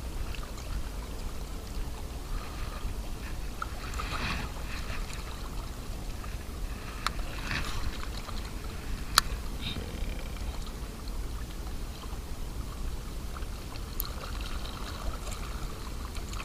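Steady wind rumble on the microphone with water lapping against the bank, and a few short, sharp clicks now and then.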